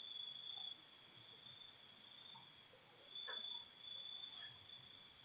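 Quiet room tone: a faint high-pitched steady tone over hiss, with a few soft clicks about three seconds in.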